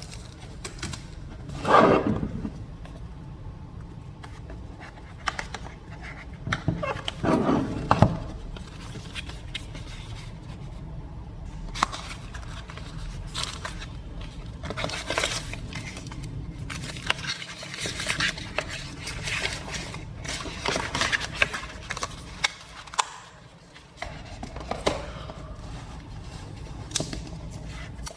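A smartphone's retail box and packaging being handled and opened: cardboard and plastic scraping, rubbing and clicking. Two louder sliding scrapes come early and about eight seconds in, then many small taps and rustles.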